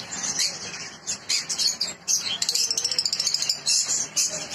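Many caged small parrots, lovebirds and budgerigars, chirping and chattering together in quick, high-pitched calls with no pause.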